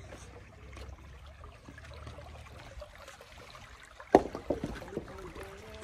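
Shallow stream trickling over stones. About four seconds in comes one sharp knock, followed by a few smaller clicks.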